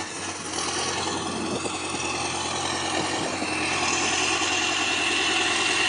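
Engine of a heavy tracked machine running steadily, getting slightly louder, with a high steady whine joining about halfway through.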